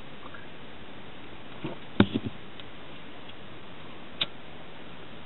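A few sharp clicks and knocks of small hard objects being handled: a quick cluster of three or four about two seconds in, then a single click about four seconds in, over a steady low hiss.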